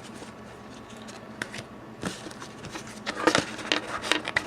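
Pokémon trading cards being handled and shuffled: a run of light clicks, snaps and rustles, sparse at first and busier in the second half.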